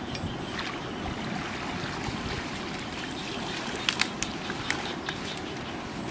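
Shallow water flowing and trickling through a small muddy ditch. About four seconds in come a few sharp clicks and splashes as wet weeds are pulled up and handled.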